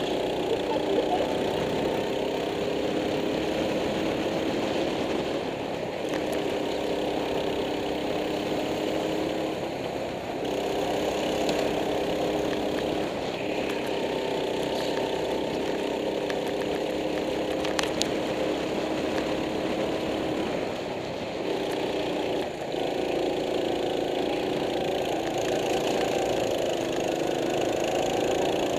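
Go-kart engine running at speed, heard onboard, its note mostly steady and dropping away briefly several times as the throttle is eased.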